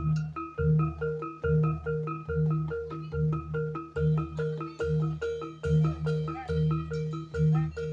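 Javanese gamelan music for a jaranan dance: metallophones ring a repeating two-note figure over steady deep drum and gong beats, about two a second. About four seconds in, a sharper high clatter joins the beat.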